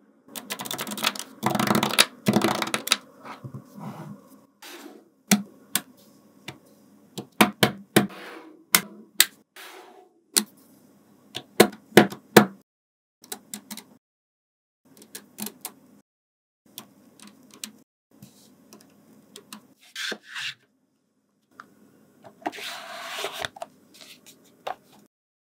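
Small magnetic balls clicking and snapping against each other in an irregular string of sharp clicks, with stretches of rattling as handfuls of balls are moved about, near the start and again near the end.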